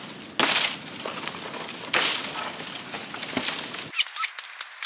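Hatchet chopping into a dead log: two loud blows about a second and a half apart, then lighter knocks and a quick run of sharp clicks near the end.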